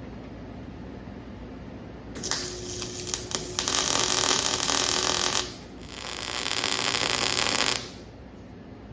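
Arc welder crackling and sizzling on quarter-inch steel in two beads, the first starting about two seconds in and lasting about three seconds, the second about two seconds long after a short pause. On this thick steel the machine is near its limit.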